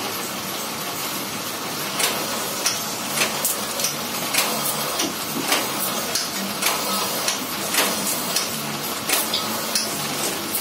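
Satay-skewer shaving machine running on its 1 hp electric motor: a steady hum and whirr, with irregular sharp clacks one to two times a second from about two seconds in.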